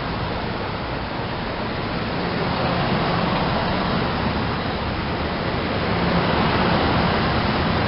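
Double-deck commuter train coaches passing at speed: a steady rush and rumble of wheels on the rails, growing a little louder over the second half.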